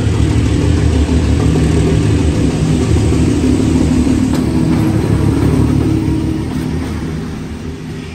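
Diesel train passing close by on Hanoi's street-level railway, its locomotive engine running loudly and steadily, then fading over the last couple of seconds as it moves off.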